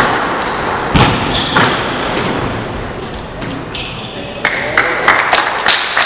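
Squash rally: the ball cracks off rackets and the court walls, the loudest hit right at the start and two more within the next second and a half, then play stops. Squash shoes squeak on the wooden court floor, and from about four and a half seconds in scattered clapping starts.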